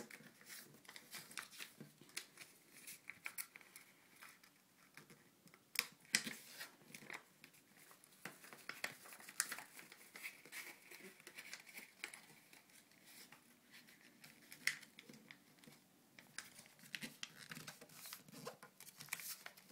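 A sheet of paper rustling and crinkling faintly in irregular small crackles as it is folded, creased and tucked by hand into an origami tank.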